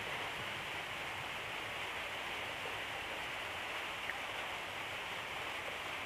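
Steady, even hiss of background noise with no speech, and one faint click about four seconds in.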